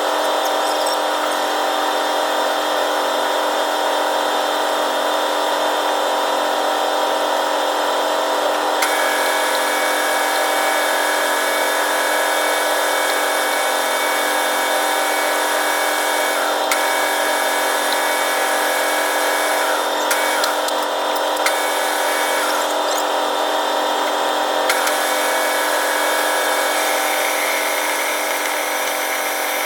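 Manual lathe running steadily with an even machine hum. A higher whine joins about nine seconds in and cuts in and out several times, with a few faint clicks.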